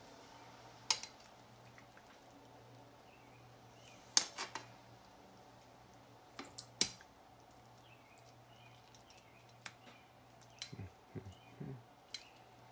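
Scattered sharp clicks and knocks of kitchen handling, with a few soft wet squelches about two-thirds of the way in, as slow-cooked pork shoulder is pulled apart and boned in a cast iron dutch oven.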